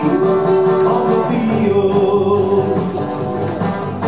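Music: a song with guitar and a sung melody.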